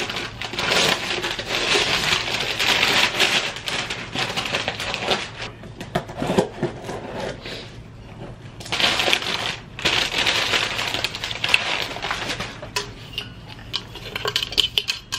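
Gift wrapping paper being torn and crumpled off a present, then a cardboard box opened and its packing paper rustled: two long spells of dense crinkling and tearing, with quieter handling noises between and after.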